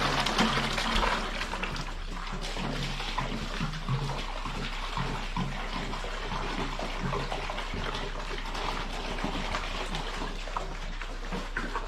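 Water running steadily, like a hose or tap pouring, with short low sounds coming and going under it.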